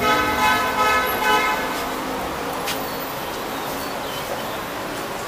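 A horn sounds a steady pitched note for a little under two seconds, swelling and dipping in level a few times. After that, steady street traffic noise continues.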